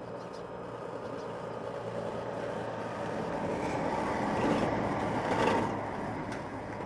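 An eighteen-wheeler semi truck driving past, its noise building to a peak about five seconds in and then easing off.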